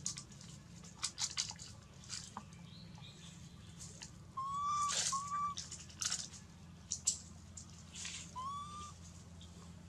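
Short whistle-like calls: two close together a little before the middle and one near the end. Scattered crackles of dry leaves run between them.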